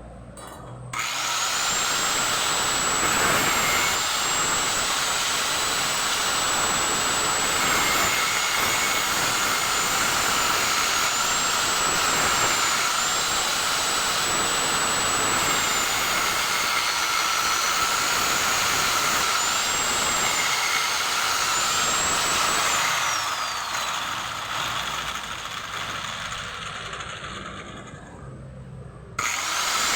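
A small electric power tool motor running with a high whine that wavers in pitch. It switches on about a second in, eases down in level after about 23 seconds, cuts off a second before the end, and starts again right at the end.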